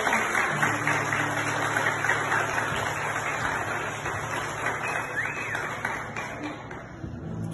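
Audience applauding, a dense run of clapping that slowly dies away near the end, over a steady low hum.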